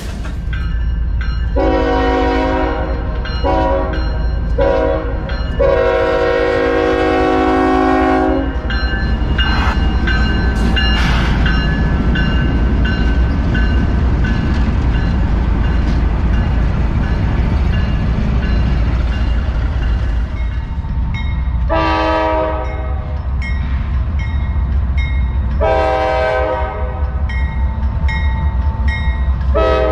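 Diesel freight or passenger locomotive passing with its air horn sounding: four blasts in the first eight seconds, the last one long, over a steady low engine rumble. Two more horn blasts come a little past the middle, and another starts at the very end.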